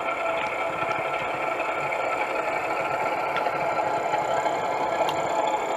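DCC sound decoder in an O gauge model class 08 diesel shunter, playing a steady diesel engine running sound through the loco's small speaker as it moves along the track.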